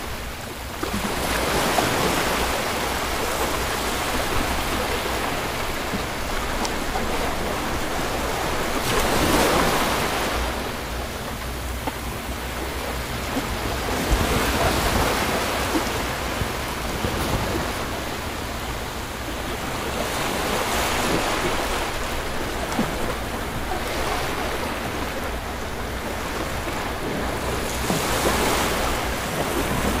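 Small ocean waves breaking and washing up a sandy beach, the surf rising and falling about every six or seven seconds.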